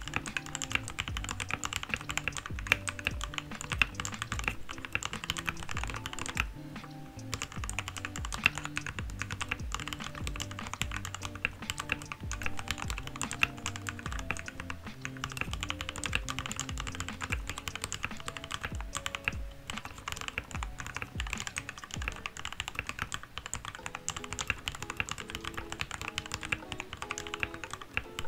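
Fast typing on a modded RK61 budget mechanical keyboard with lubed switches and a tape mod: a dense, steady run of key clacks with a brief pause about seven seconds in. Background music plays underneath.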